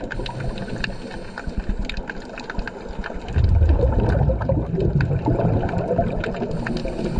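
Underwater sound of a scuba dive: a diver's exhaled bubbles rumble and gurgle, loudest for a couple of seconds in the middle, over a constant crackle of fine clicks.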